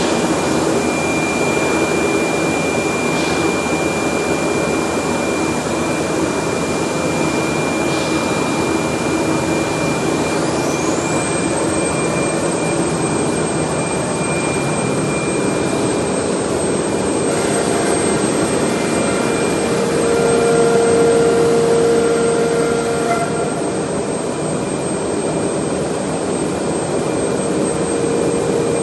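SCM Morbidelli M600 five-axis CNC machining centre running on wood: a steady loud rushing noise with a high, steady whine. Just over a third of the way in, a whine rises sharply in pitch, and about two-thirds in a lower hum swells and the noise grows a little louder for a few seconds.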